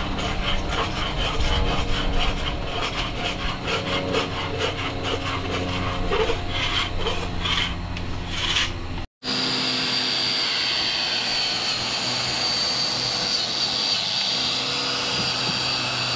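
Rapid, rhythmic scraping strokes on a boat's painted hull as old antifouling paint is worked off. After a cut about nine seconds in, a random orbital sander runs steadily with a high whine.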